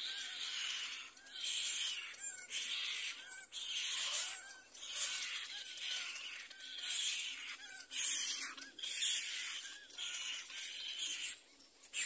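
Cormorant chicks begging to be fed by the parent: raspy, hissing calls in repeated bursts about a second apart.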